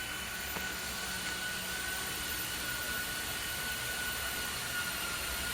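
ART1325 CNC router running steadily: a constant high whine over an even hiss, with no change in pace.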